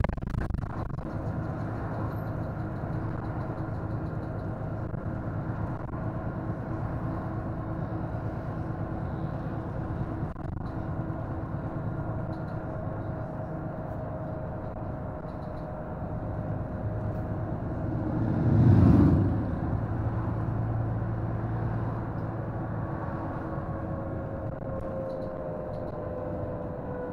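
East Lancs Omnidekka double-decker bus running, its engine and drivetrain giving a steady drone with whining tones that slide slowly lower through the second half. About two-thirds of the way through, a loud low rumble swells and fades within about a second.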